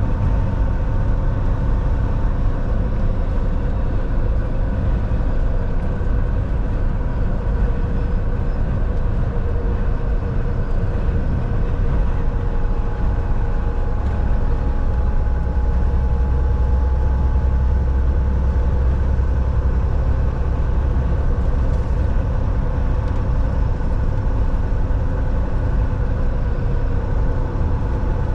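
Volvo semi-truck on the road: a steady engine drone and road rumble with a few constant tones over it. Partway through, one tone steps slightly lower, and the low rumble grows heavier for several seconds before settling back.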